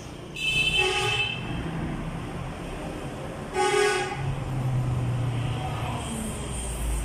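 Two short vehicle-horn toots about three seconds apart, over steady traffic noise with a low engine hum.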